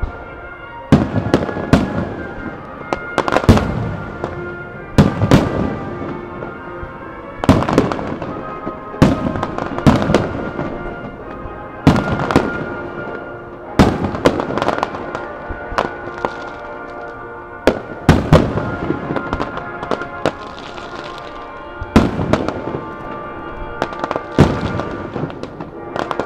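Aerial fireworks shells bursting in quick succession, a loud bang every second or two, each followed by an echoing rumble. Music plays steadily alongside.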